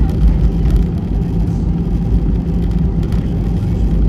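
Steady low rumble inside an Airbus A320's cabin during the landing rollout: engine noise and the wheels running on the runway.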